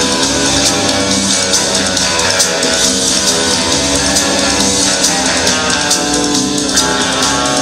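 Figure skating program music played over a rink's sound system: continuous rock-style music with guitar and drums.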